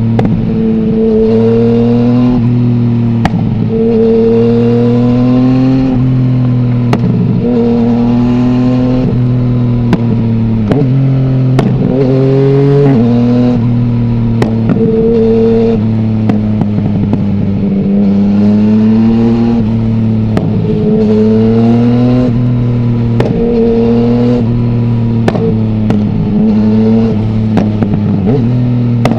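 Yamaha MT-09's 847 cc inline-three running through an Akrapovic full-system exhaust with no dB killer, on the move. The engine pitch climbs and falls back again and again as it accelerates and backs off, with short sharp cracks scattered through.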